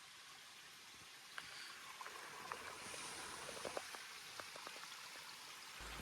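Faint, steady rush of running water, like a small creek, with a few light ticks scattered through it.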